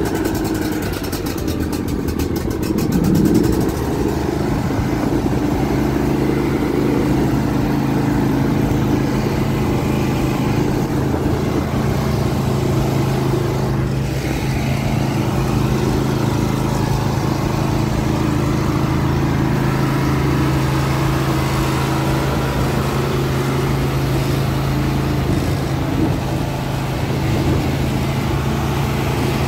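John Deere D140 riding mower's engine running steadily just after starting. Its speed rises and falls briefly about three seconds in.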